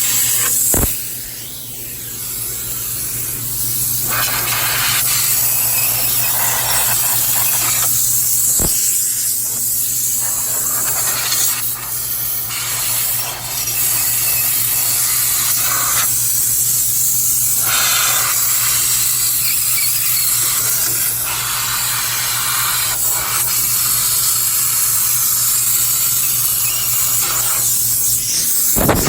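Compressed nitrogen blown through a dust-clogged ice machine condenser coil to clear it: a loud rush of gas that stops and starts again every few seconds, over a steady low hum.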